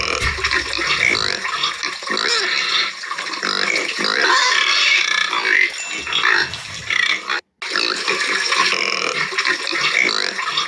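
Domestic pig squealing in a dense, continuous stream, with a brief break about seven and a half seconds in.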